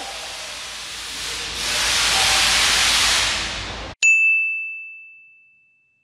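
Steady hiss that grows louder about halfway through, cut off abruptly about four seconds in by a single bright ding that rings and fades over about a second and a half.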